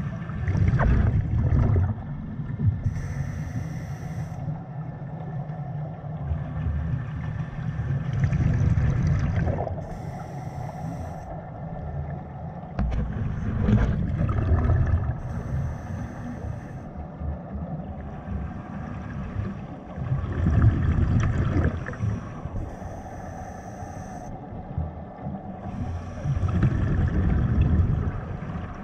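Scuba diver's breathing through a regulator, heard underwater: a brief high hiss alternating with a low rumble of exhaled bubbles, repeating about every six to seven seconds.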